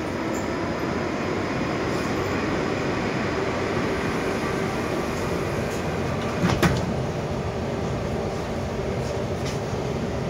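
Sliding passenger doors of a "Moscow 2024" (81-775.2) metro car closing, shutting with a single knock a little over halfway through, over the steady hum of the train standing at the platform.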